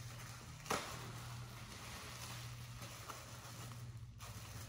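Faint rustling and crinkling of a clear plastic bag being handled and opened, with one sharp tick about three-quarters of a second in, over a steady low hum.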